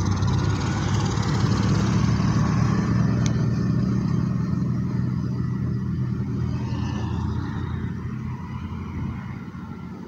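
A large road vehicle passing close by, its deep engine note fading away over the last few seconds as it drives off.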